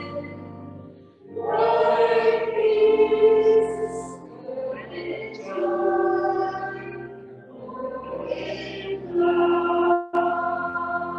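A group of voices sings a slow sung blessing in chorus, phrase by phrase. About ten seconds in there is a short break, then a long held chord.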